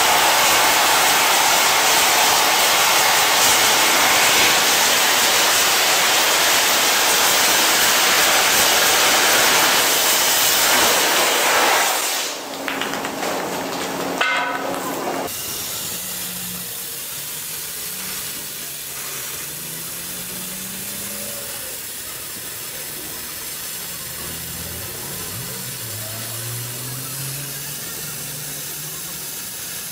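Oxy-fuel cutting torch blowing its oxygen jet through thick steel: a loud, steady hiss. About twelve seconds in it drops abruptly to a quieter steady hiss with faint low wavering hums, as a machine-guided oxy-fuel torch cuts steel plate.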